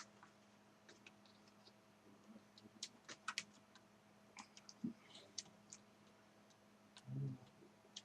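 Faint, scattered small clicks and taps of an HP DV6000 laptop's plastic parts and ribbon-cable connectors being handled during disassembly, with a brief low hum about seven seconds in.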